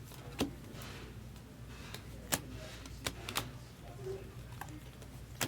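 Chrome trading cards being handled during a box break: several sharp, irregularly spaced clicks with faint rustling between them.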